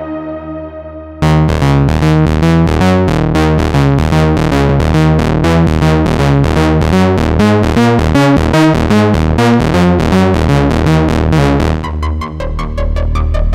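Nord Lead A1 virtual-analog synthesizer playing its 'Detune Bass' patch: a fast run of short repeated bass notes. It starts suddenly about a second in, just as a held chord fades away, and stops near the end, when another sound comes in.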